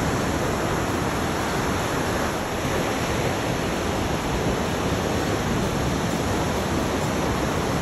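Ocean surf breaking and washing in: a steady, even roar of waves.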